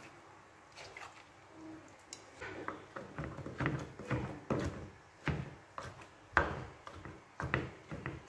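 Kitchen knife chopping shredded chicken on a wooden cutting board: irregular knocks, about one or two a second, starting a few seconds in.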